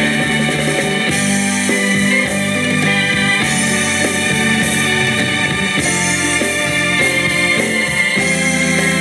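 Instrumental passage of a ballad played by a band: guitar over keyboards, bass and drums, with no singing.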